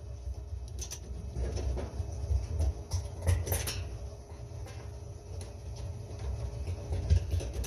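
Short scrapes and clicks of metal parts and hand tools being handled while the drum wheel bracket is fastened, over a steady low hum.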